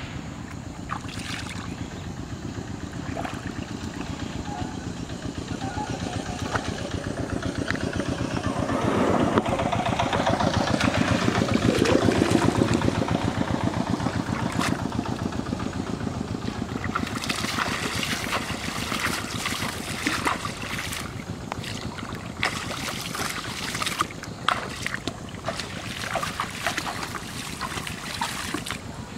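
A small engine running with a fast, even pulse, growing louder to a peak about twelve seconds in and then fading, like a motor vehicle passing. Water splashing and sloshing in the second half as a man wades through shallow water.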